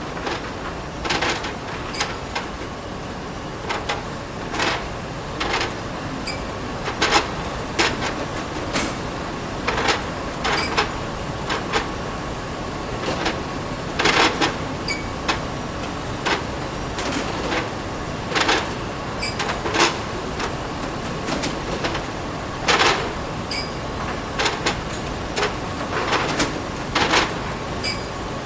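Plate-making machinery at work: irregular sharp clanks and clinks, roughly one every second or two, over a steady machine hum.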